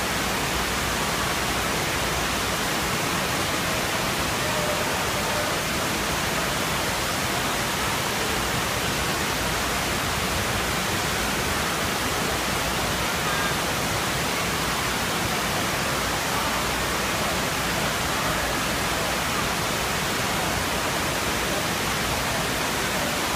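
FlowRider surf simulator's pumped sheet of water rushing up the wave ramp, a steady, loud hiss of water.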